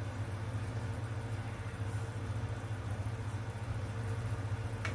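Steady low hum of a kitchen appliance running, with one light click near the end as a slotted turner touches the pan.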